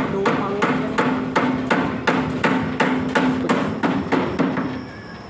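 Steel hammer nailing timber formwork boards, steady blows about three a second with a ringing tone under them, stopping near the end.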